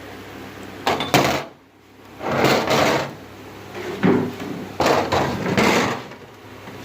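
Tools and engine parts being handled and set down: two sharp clacks about a second in, then several scraping, rattling bursts, over a low steady hum.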